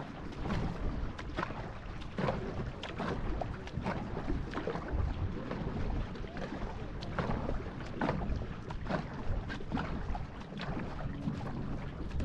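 Paddle strokes of a two-person marathon racing canoe: the blades catch and pull through the water in a steady rhythm, with a short splash about every second, over water rushing along the hull and wind buffeting the microphone.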